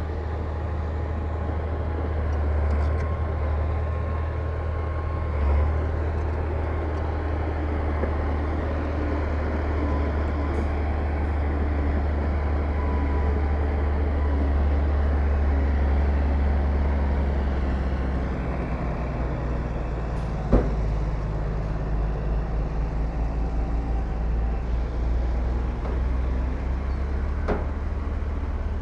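Heavy construction-machine diesel engine running with a deep, steady drone; from about two-thirds of the way in, its note turns uneven and pulsing. A single sharp clank, the loudest moment, comes shortly after, with a few lighter knocks near the end.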